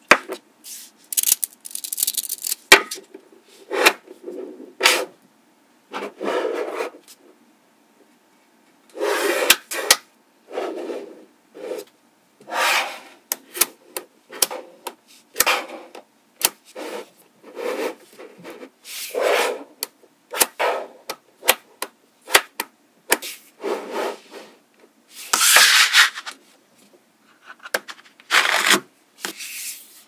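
Small magnetic balls rasping and clattering against one another as sheets of them are pressed and folded together by hand, in short separate bursts with sharp clicks between as balls snap into place. There is a brief pause about a third of the way through.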